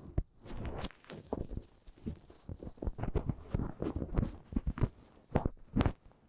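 Goose-feather puff ear pick brushing and rubbing in an ear-cleaning motion against the microphone, making irregular soft scratchy rustles, with two stronger strokes near the end.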